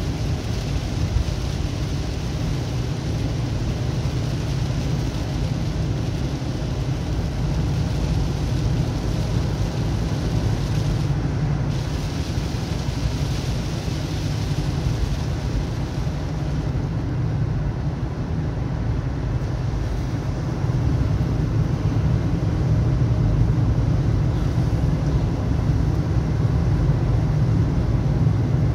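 A vehicle driving, with steady road and engine noise concentrated in the low end, getting a little louder about two-thirds of the way through.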